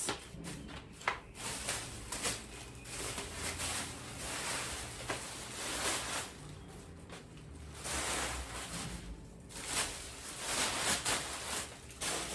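Rustling and scattered light knocks of things being handled, in irregular swells over a low rumble.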